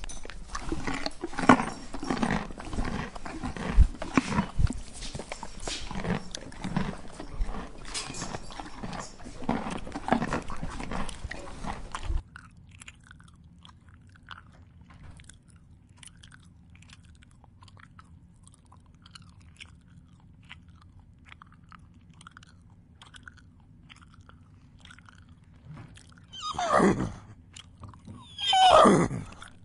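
A horse chewing close to the microphone, a dense run of crunching that stops suddenly about twelve seconds in. Quieter faint ticking follows, then near the end two loud horse whinnies, each falling in pitch, about two seconds apart.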